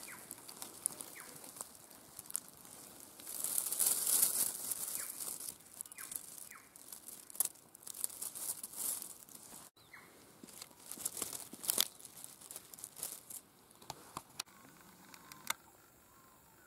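Footsteps crunching and rustling through dry bracken fern and leaf litter, in irregular crackles, with a few short high chirps; it turns quieter after about fourteen seconds.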